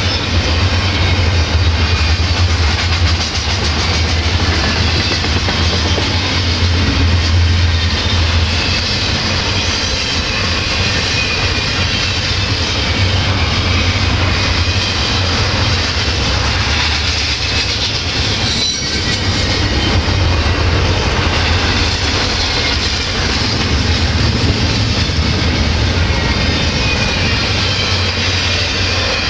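Double-stack intermodal container train passing, its well cars' steel wheels rumbling steadily on the rails with a clickety-clack over the rail joints.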